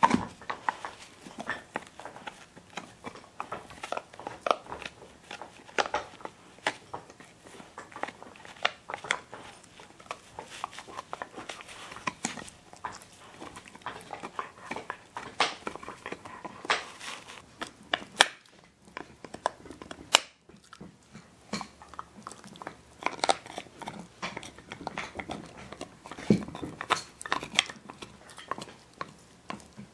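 Siberian huskies gnawing on antler chews: teeth clicking, cracking and scraping on the hard antler at an irregular pace, with some sharper cracks.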